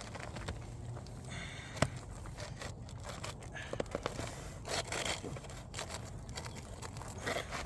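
Asphalt roofing shingle scraping and crinkling as it is worked into place under the neighbouring shingles, with irregular small ticks and one sharp click about two seconds in.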